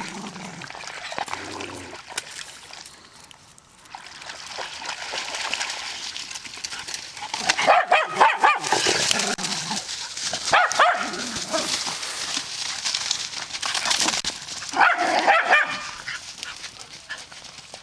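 Dogs barking and yipping in play, in several short bursts about halfway through and again near the end, over a steady hiss.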